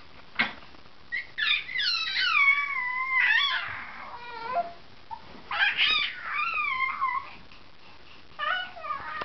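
Young baby cooing and squealing in long, high-pitched, gliding vocal sounds in three bouts: a long one of about three seconds, a shorter one a second later, and a brief one near the end. A single sharp click comes just before the first bout.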